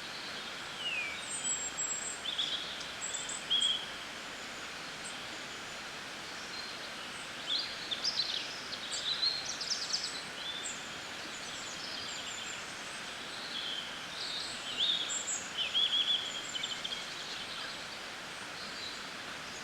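Birds chirping and twittering in short bouts of high calls, over a steady background hiss of outdoor ambience.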